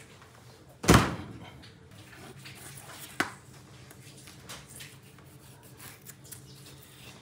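A loud thud on a stainless steel work table about a second in, then a sharper knock a couple of seconds later, amid the faint scraping and ticking of a knife cutting lamb rib meat.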